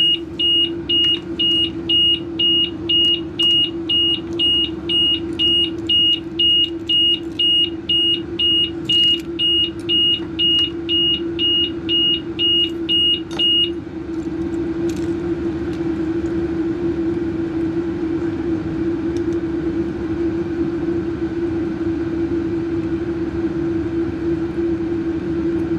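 An electronic beeper sounding a high, even beep about twice a second, a racket that stops suddenly about 14 s in. A steady low hum runs underneath throughout.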